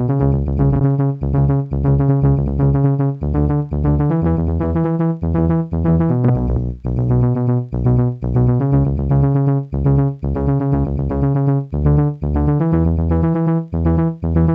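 Yamaha PSR-36 synthesizer keyboard played through a Vivlex Time Maker delay pedal on its Pure delay setting: a synth melody over a steady, pulsing bass line.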